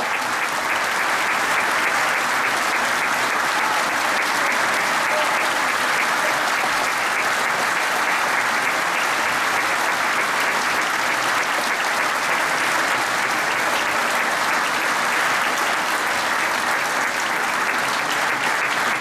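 Steady, sustained applause from a concert audience and the band members, an even clatter of many hands clapping.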